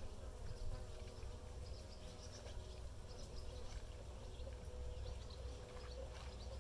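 Bees buzzing around a hive entrance: a faint, wavering hum of wingbeats as bees crowd the opening and fly in and out, over a steady low rumble.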